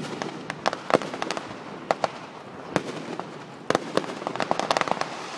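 Fireworks bursting: an irregular string of sharp cracks and pops, bunching into quick crackling runs about a second in and again from near four seconds.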